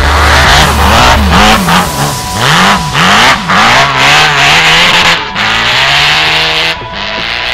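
Off-road buggy's engine revving hard in quick rises and falls as it slides and spins its wheels on snow, with a loud hiss of spinning tyres and thrown snow. About four seconds in, the engine settles into a steadier, lower note as the buggy pulls away.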